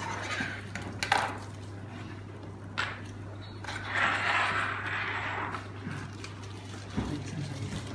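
A few sharp clinks of small hard metal pieces being handled and set down, one described as crisp and metallic, with a short scraping rustle in the middle.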